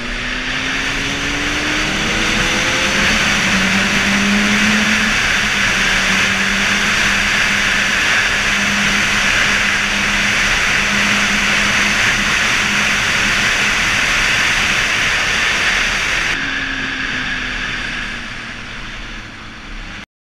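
Kawasaki Ninja 636's inline-four engine picking up revs and then holding a steady pace under loud wind rush on the bike-mounted camera. About sixteen seconds in the engine note falls away as the bike slows, and the sound cuts off abruptly near the end.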